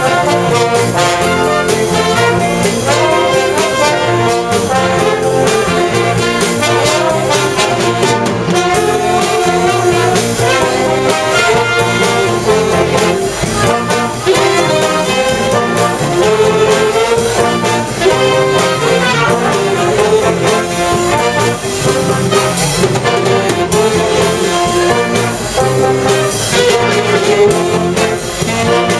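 A jazz big band playing live, trombones, trumpets and saxophones sounding together in a dense, continuous ensemble passage.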